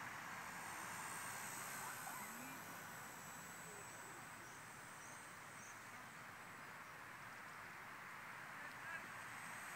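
Faint open-air ambience with the distant Blade mCPX micro RC helicopter's thin, steady high-pitched motor whine, and a few faint honking calls, like distant geese.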